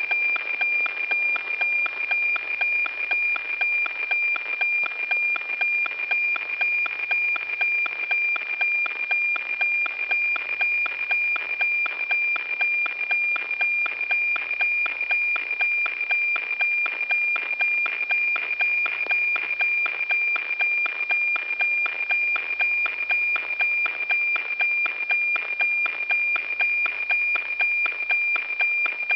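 NOAA-19 weather satellite APT signal received by radio: a steady high tone with an even tick-tock about twice a second. Each tick is a line of the cloud image being sent.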